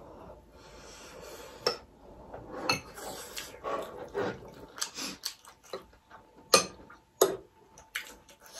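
Spoons and forks clinking and scraping against glass bowls of noodle soup, with the mouth sounds of eating; the two sharpest clinks come a little past two-thirds of the way through.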